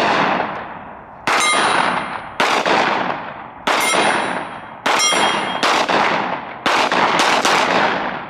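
Handgun fired about eight times, roughly a second apart and quicker near the end, each shot trailing off in a long echo. A high metallic ring follows several of the shots, as steel targets are hit.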